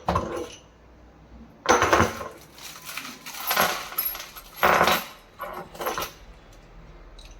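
Small metal parts clinking and clattering as they are handled, in five or six short bursts: most likely the gas strut and its metal fittings being picked up and set down.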